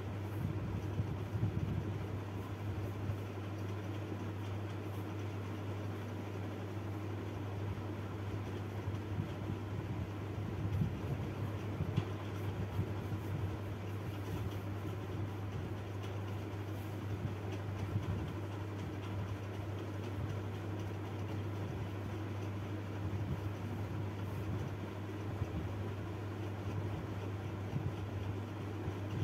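Steady low hum with a light hiss, unchanging throughout.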